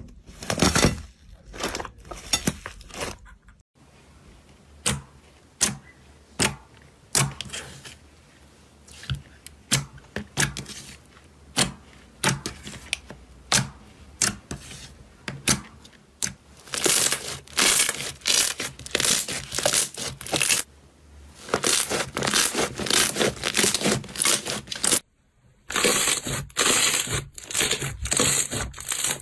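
Slime being squeezed and poked by hand: scattered sticky pops and clicks, then long runs of dense crackling as it is pressed and folded. The crackling breaks off for a moment near the end, then starts again.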